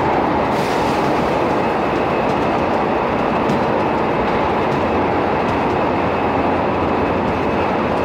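São Paulo Metrô fleet L subway train running between stations: a loud, steady rumble of wheels on track with a faint steady whine.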